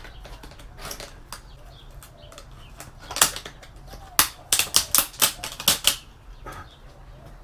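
Sharp clicks and snaps of parts being worked loose as an LCD TV's finger strip boards are removed: a few single clicks at first, then a quick run of about eight between four and six seconds in.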